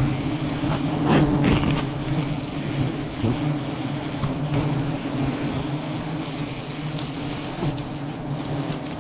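Steady, dense hum of a swarm of giant honeybees (Apis dorsata) flying around their comb as it is cut open, with a few short clicks about a second in.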